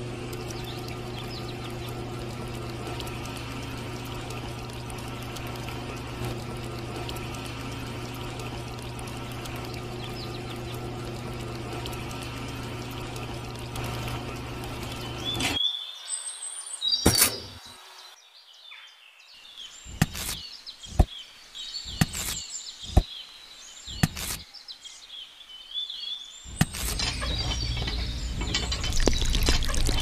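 Small electric motor of a miniature DIY cement mixer running with a steady hum, stopping suddenly about halfway through. Then bird chirps and several sharp knocks, and near the end a louder noise starts as wet cement slurry pours from the tipped drum.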